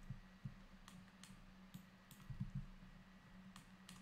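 Faint clicks of a computer mouse, about six, some in quick pairs, over a low steady hum.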